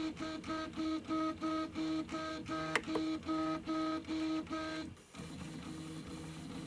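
Prusa i3 MK3 3D printer's stepper motors whining in pitched tones, pulsing in quick moves about three times a second, with a sharp click midway. After about five seconds they settle into a steadier, lower whine. They are loud for stealth mode, which the owner takes for a fault in stealth mode.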